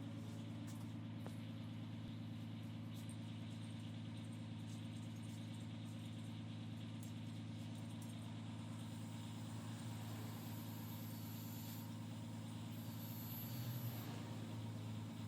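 A steady low mechanical hum, holding one pitch throughout and swelling slightly near the end.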